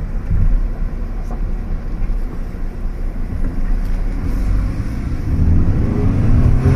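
Fiat Egea's engine pulling under acceleration, its revs climbing steadily from about five seconds in. It is being run to high revs before shifting, to free up an engine that the mechanic calls sluggish from always being short-shifted.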